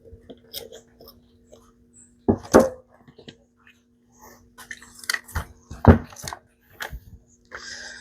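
Irregular clicks, taps and knocks of a pick and plastic chainsaw parts being handled while a fuel line is worked into place, the loudest knocks about two and a half and six seconds in. A steady low hum runs underneath.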